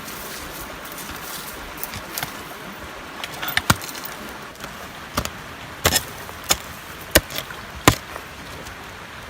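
Wood struck with a tool in a series of sharp knocks, irregularly spaced, about seven of them in the second half.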